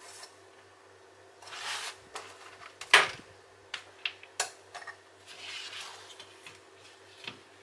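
Hands handling yarn and crochet materials on a work surface: rustling, a sharp click about three seconds in, then several lighter clicks and more rustling.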